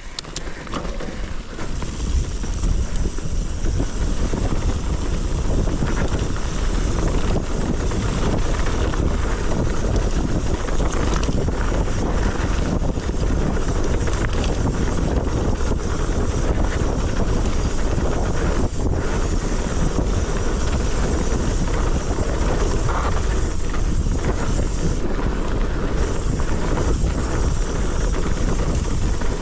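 Steady wind buffeting on the microphone of a mountain bike descending a steep trail, building over the first two seconds as speed picks up.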